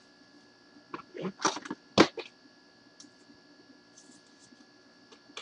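Trading cards being handled by hand: a short run of rustles and clicks, the loudest a single sharp click about two seconds in, then a few faint ticks.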